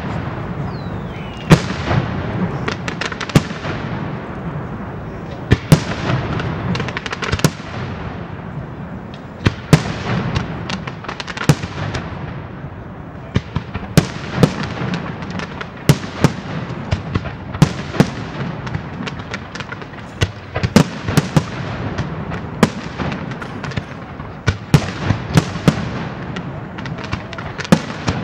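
Aerial fireworks display: a rapid, irregular series of sharp bangs from bursting shells, several a second at times, over a continuous crackle.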